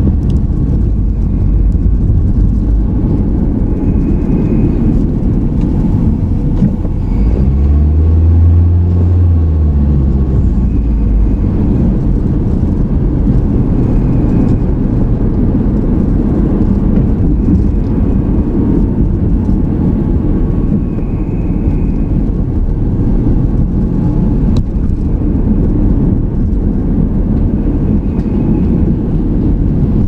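Car driving on a town road, heard from inside the cabin: a steady low rumble of engine and tyres. About eight seconds in, the engine note rises and then falls back once.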